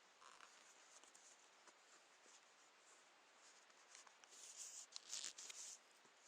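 Near silence: a faint hiss with soft scratching and rustling, a little louder about four to six seconds in.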